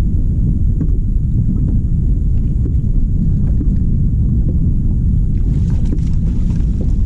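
Wind buffeting the microphone: a loud, steady low rumble with a few faint ticks over it.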